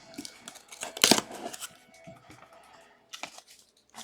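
Rustling and handling noise from card boxes being moved, with a sharper knock about a second in and a short rustle near the end, over faint background music.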